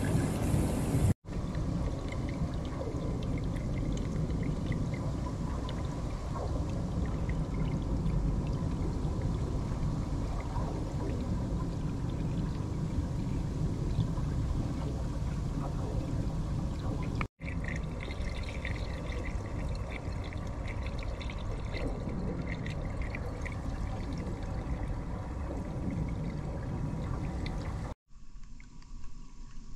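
Swimming pool water pouring and splashing steadily, the surface stirred by the pool's jets. The sound drops out for an instant three times and is fainter after the last gap near the end.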